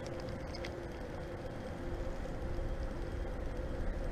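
Wind rumbling on the microphone at the water's edge, with a faint steady hum underneath and a few light ticks early on.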